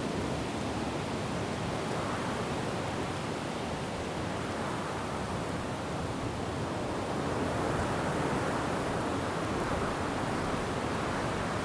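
Wind blowing through forest trees together with falling rain, a steady rushing hiss that swells slightly in gusts, once about two seconds in and again past the middle.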